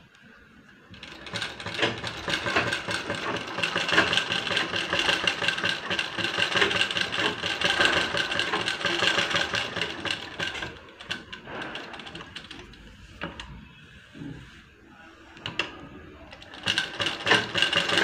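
Limbad sewing machine stitching a seam through blouse cloth and lining in a fast, steady run, starting about a second in. It stops for several seconds with a few clicks, then runs again near the end.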